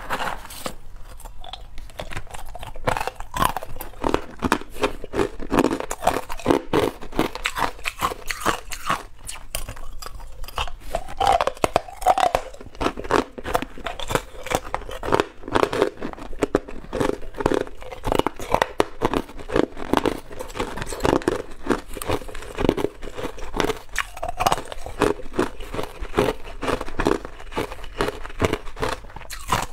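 Hard ice cubes coated in green powder being crunched and chewed close to the microphone, bite after bite with a rapid, dense crackle throughout.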